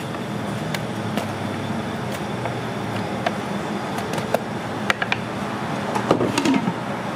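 Steady background rumble of a working pizzeria kitchen, with scattered sharp clicks and clatter that come more often and louder about five to six and a half seconds in.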